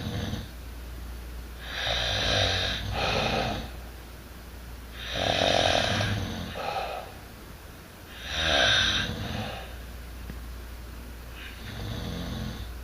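Snoring: four snores about three seconds apart, the last one fainter.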